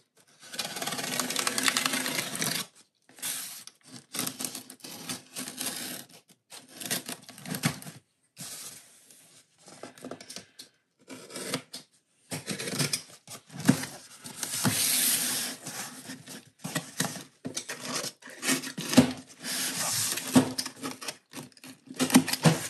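Corrugated cardboard shipping box being opened by hand: cardboard rubbing and scraping, packing tape tearing, and a utility knife slitting the cardboard. It comes in stop-start stretches of noise broken by abrupt silent gaps.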